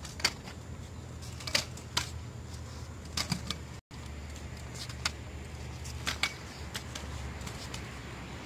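Scattered sharp clicks and light knocks at irregular intervals over a steady low hum, with a brief dropout a little before halfway.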